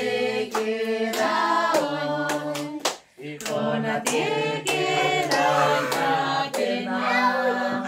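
A group of voices singing together, with hand clapping along. The singing breaks off briefly about three seconds in, then carries on.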